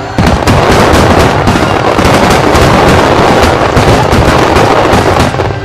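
A barrage of many aerial firework shells bursting together: a loud, unbroken roll of booms and crackle that starts abruptly and eases off near the end.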